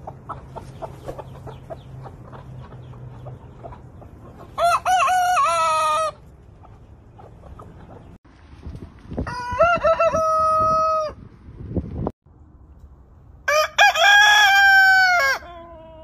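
Roosters crowing: three separate cock-a-doodle-doos, each about one and a half to two seconds long, the first about a third of the way in and the other two evenly after it. Soft low clucking comes before the first crow.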